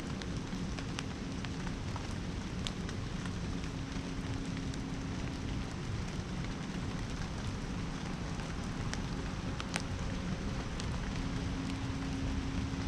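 Steady rain: an even hiss with scattered sharp drip ticks, and a faint low hum that comes and goes.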